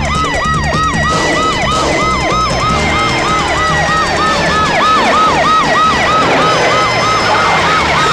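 Police vehicle sirens sounding a fast, repeating falling yelp, about three or four sweeps a second, over background music.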